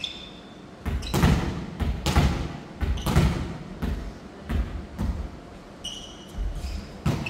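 Volleyball being passed and hit back and forth: a quick series of hollow thuds from forearm passes, sets and hits, echoing in a large gym hall. There are a couple of short shoe squeaks on the wooden floor.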